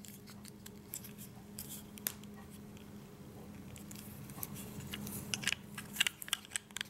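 Light plastic clicks and rattles of a selfie stick's hard plastic camera-mount attachment being fitted and worked by hand. The clicks come thickest a few seconds in, as the piece resists clicking into place.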